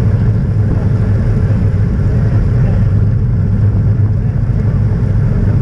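Wind rushing over the microphone of a camera on a moving road bicycle, with tyre noise from the asphalt: a loud, steady low rumble.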